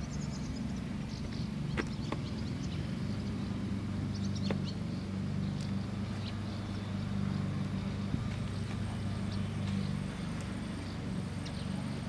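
A steady, low engine hum, with a few sharp clicks and taps about two and four and a half seconds in as a laptop hard drive is handled in its bay.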